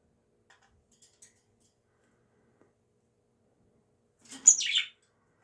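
A pet bird's single short, loud chirp that falls in pitch, about four and a half seconds in, after a few faint light ticks.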